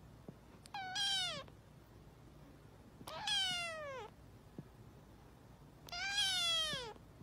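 A kitten meowing three times, each meow about a second long and falling in pitch.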